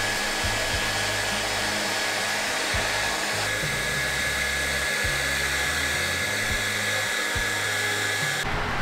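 Handheld hair dryer blowing steadily on a dog's wet coat, a constant rush of air with a thin high motor whine; it cuts off suddenly near the end.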